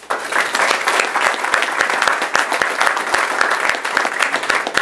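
Audience applauding: many hands clapping together in a dense patter that starts all at once.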